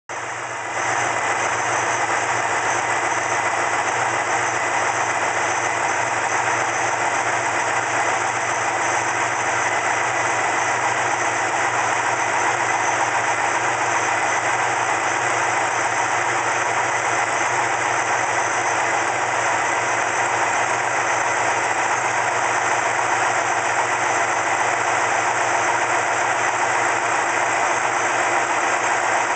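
2005 BMW X5 4.4's V8 engine idling steadily, stepping up in level about a second in.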